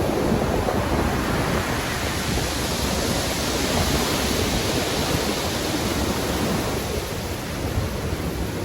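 Stormy sea: heavy surf and waves washing in a continuous rushing roar, with a wave swelling to a hiss around the middle and easing off toward the end.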